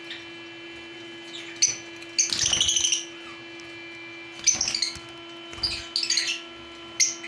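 Small caged pet birds chirping in short separate calls, about six in all, with a longer chattering call between two and three seconds in. A steady hum runs underneath.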